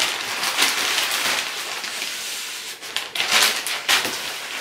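Plastic mailer bag crinkling and rustling in uneven swells as it is opened and a foam-wrapped parcel is pulled out of it.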